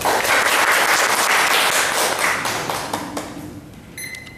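Audience clapping, breaking out at once and dying away about three seconds in.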